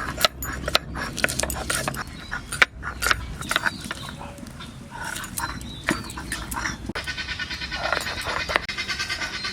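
Whole spices dry-roasting in a pan, with repeated sharp clicks and scrapes from stirring. From about seven seconds in, a long, rapidly pulsing animal call.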